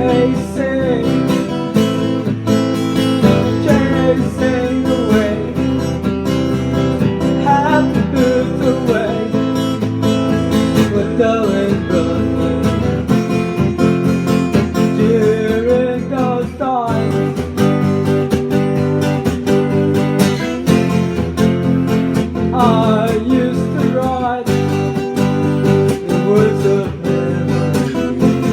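A live acoustic guitar being strummed, with a solo voice singing a melody over it.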